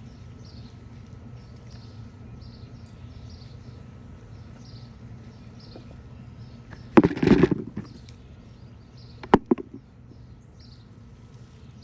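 Hands working soil in a potato-growing bucket: a loud scraping rustle of dirt about seven seconds in, then two or three sharp knocks about two seconds later. Birds chirp faintly in the background about once a second over a low steady hum.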